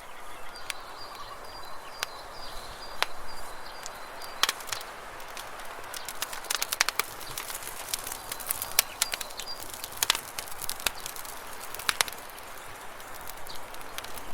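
Irregular sharp clicks and taps over a background hiss, with a faint high thin tone heard twice.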